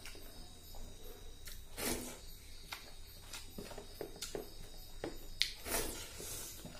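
Close-up eating sounds: fingers mixing rice and fish curry gravy on a plastic plate, with irregular soft wet clicks and smacks.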